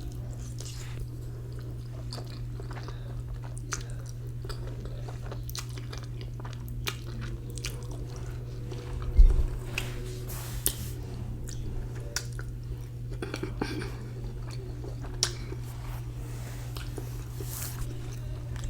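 Close-miked chewing of spicy ramen noodles: wet mouth clicks and soft biting over a steady low hum, with one louder low thump about nine seconds in.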